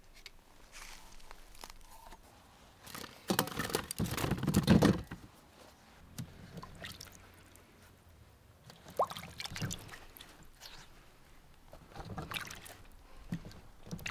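Apples being washed by hand in a bowl of water: splashing and sloshing in several separate bouts.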